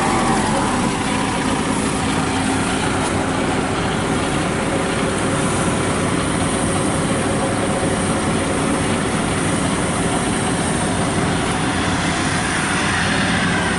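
FMWorld WD102 Pro rice combine harvester running steadily while parked, its engine and threshing machinery making a loud, even din with a rattle. The abnormal noise is one the men around it put down to the fan blades rubbing.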